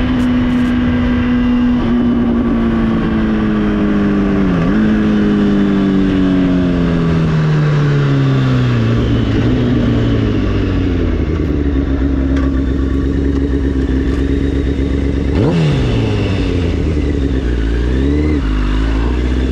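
Motorcycle engine running at a steady speed, then winding down with a steadily falling pitch and settling to a low rumble. There is a short dip in pitch partway through, and a quick rev rises and falls back about fifteen seconds in, with smaller blips after it.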